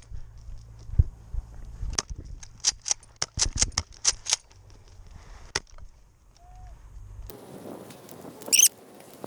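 Airsoft guns firing: sharp cracks, some single and some in quick runs of four or five, through the first six seconds. Near the end a brief, loud, high-pitched sound.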